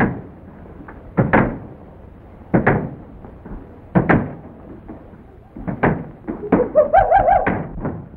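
Old film soundtrack of a movie ape's attack: a run of loud, sudden grunting bursts about every second and a half, then a longer wavering, pulsing cry near the end.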